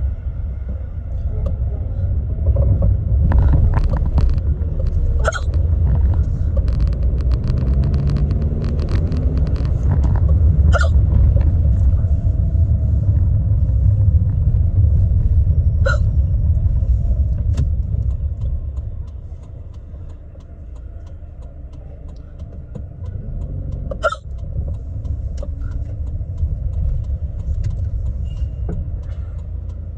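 A woman's deep hiccups, several of them a few seconds apart, over the steady low rumble of a moving car's cabin.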